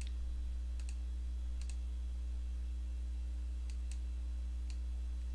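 Computer mouse button clicking about half a dozen times, some clicks in quick pairs, over a steady low hum.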